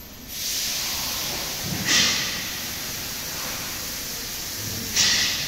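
Steady hissing noise, with two short, louder bursts of hiss about two and five seconds in.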